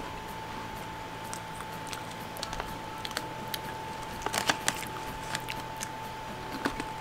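Crisp crunching of Paldo crab-flavoured chips being bitten and chewed: scattered crackles, with a denser burst about four and a half seconds in and another sharp crunch near the end. A steady hum runs underneath.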